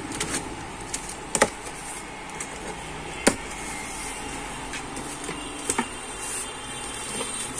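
Packing tape on a cardboard box being slit and the cardboard flaps pulled open: scattered sharp snaps and rustles, the sharpest about three seconds in, over steady background noise.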